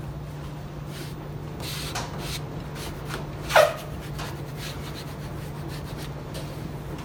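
A plastic squeegee rubbing and scraping over a vinyl decal on a washer's metal front panel, in short strokes, with one sharp squeak that drops quickly in pitch about three and a half seconds in. A steady low hum runs underneath.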